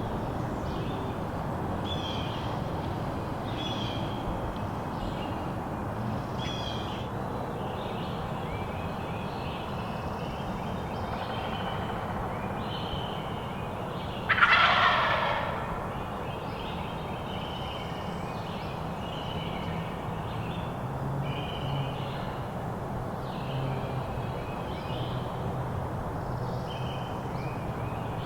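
A wild turkey gobbler gobbles once, loudly, about halfway through. Short, high bird chirps repeat about once a second throughout.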